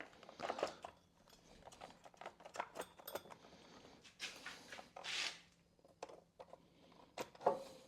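Faint scattered clicks and light handling knocks, with a short hiss about five seconds in.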